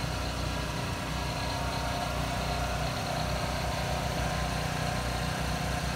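An engine running steadily at a constant idle, a low even hum that does not change.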